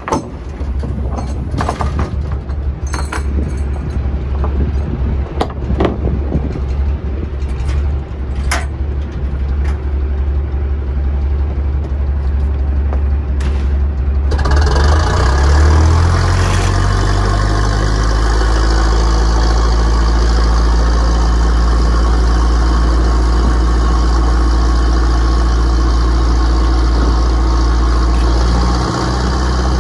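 Small bottom-trawl fishing boat's engine running, with scattered knocks and clanks on deck. About halfway through the engine speeds up, and a louder steady rushing noise comes in and holds.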